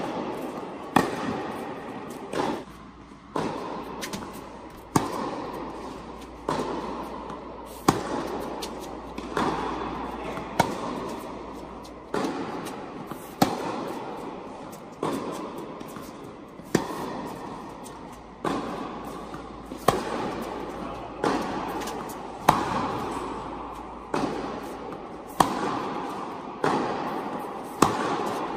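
Tennis ball being hit back and forth in a baseline rally: sharp racket strikes and ball bounces about every one and a half seconds, each echoing around the large indoor tennis hall.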